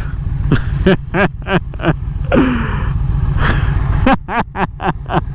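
Indian Challenger's V-twin engine running steadily at road speed, with short voice-like sounds from the rider over it several times.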